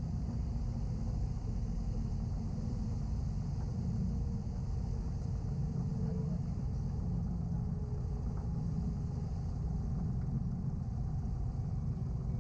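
Small four-cylinder engine of a 1946 Luscombe 8A running at low power as the taildragger rolls out on the runway after landing, heard inside the cabin as a steady low rumble.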